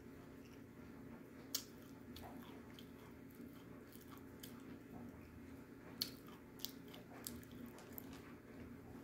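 A person chewing a mouthful of soft baked clay, with sharp crunches now and then; the loudest come about a second and a half in and six seconds in.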